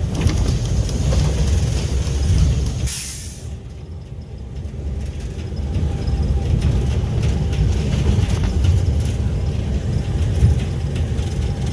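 GE U18C diesel locomotive running under way, a steady low rumble of engine and rail noise. About three seconds in comes a short burst of hiss, and the sound drops for a couple of seconds before the rumble returns.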